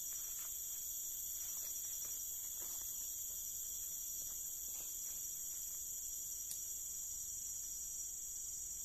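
Steady high-pitched chorus of insects, a continuous shrill drone that does not let up, with a few faint soft knocks and a single click about six and a half seconds in.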